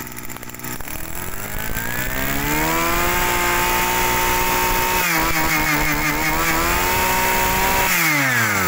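Robin NB253 brush cutter's 25cc two-stroke engine running: it idles, is revved up to a high steady pitch starting about a second in, wavers in speed for a couple of seconds in the middle, and drops back toward idle near the end.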